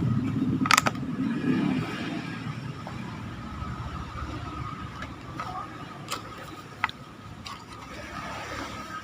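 A passing motor vehicle's rumble fades away over the first couple of seconds. After it come a few sharp clicks and light handling noises as a cardboard charger box is opened.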